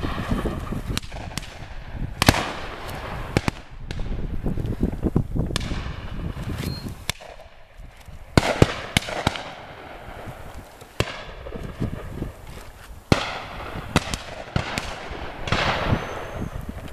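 Distant shotgun fire from a driven pheasant shoot: many irregular shots, some in quick pairs, each echoing across the valley.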